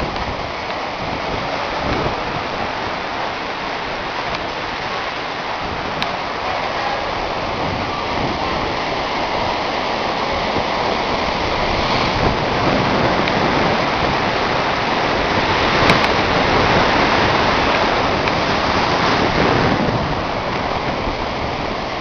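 Rough ocean surf breaking on a sandy shore: a steady rushing wash that swells louder about halfway through and eases near the end.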